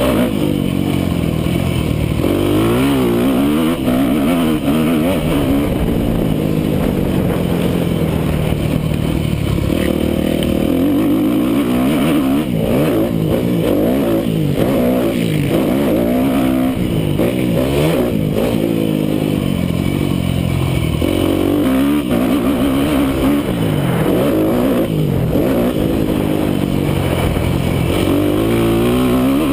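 Yamaha YZ250F four-stroke motocross engine heard from on the bike while racing a dirt track, its pitch climbing and dropping again and again every second or two as the throttle is opened and closed.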